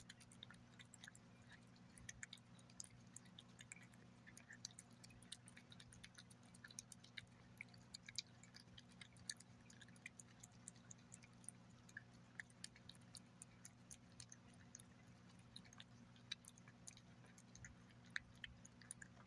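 A cat eating turkey paté from a glass plate: an irregular run of small clicks and smacks from chewing and licking, continuing throughout.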